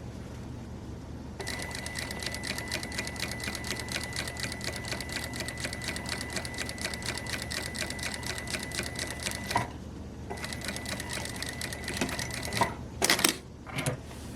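Electric sewing machine stitching in a fast, even rhythm over a steady motor whine. It stops briefly about two-thirds of the way through, runs again for a couple of seconds, then a few sharp clicks follow near the end.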